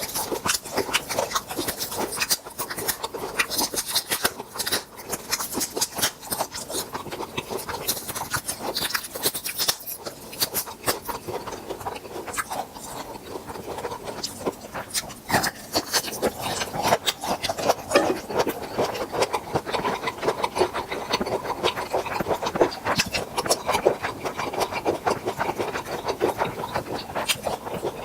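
Close-miked eating of grilled tiger prawns: continuous crunching and chewing with dense small crackles of shell.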